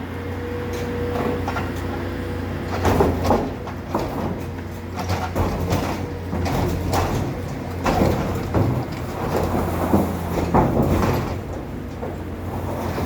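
Heavy machinery running steadily with a low engine drone and a held tone, broken by repeated metallic clanks and knocks.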